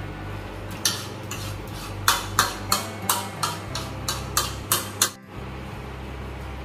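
Metal cutlery clinking and scraping against a plate: about a dozen sharp taps, roughly three a second, stopping about five seconds in, as the last of the food is scraped up.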